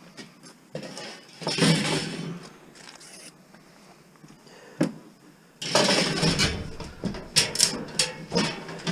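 Scrap metal being handled and loaded: a scraping rattle about a second and a half in, a single sharp knock near five seconds, then dense metallic clattering and knocking from about five and a half seconds on.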